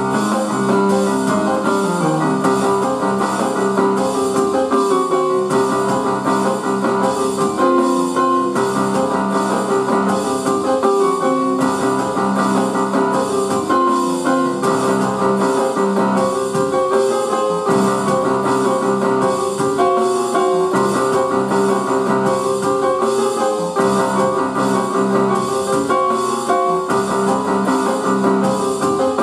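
Roland electronic keyboard played with both hands in a piano voice: a melody moving over held chords at an even, fairly loud level.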